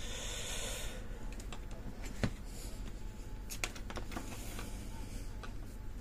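Cloth sliding and rustling across a tabletop for about a second, then a few light, sharp clicks and taps of small objects being handled.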